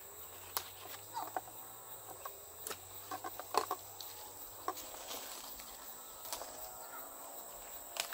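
Leaves and stems snapping and rustling as young leaves are plucked by hand, a series of sharp irregular ticks. A chicken clucks in the background, most clearly near the end.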